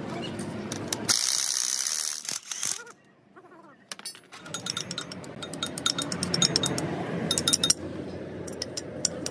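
A hand ratchet wrench clicking rapidly as bolts on a truck differential carrier are turned, for about three seconds in the second half. Earlier, about a second in, comes a loud second-long burst of harsh, hiss-like noise.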